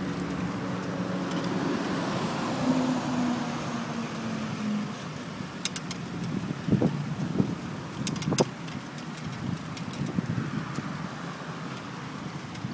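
Wheels rolling fast over paving stones as a dog pulls the rider along, a steady rumble with a few sharp clicks and knocks near the middle.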